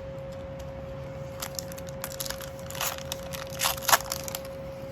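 Plastic-foil wrapper of a 2023 Donruss basketball card pack crinkling and tearing as it is opened. The crackles come in a cluster from about a second and a half in and are loudest near the end, over a faint steady hum.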